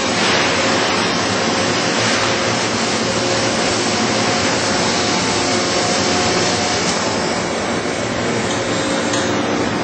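Dahlstrom steel coil slitting line running: slit steel strip feeding over a roller table into the looping pit, a loud steady mechanical rush with a few faint steady hums.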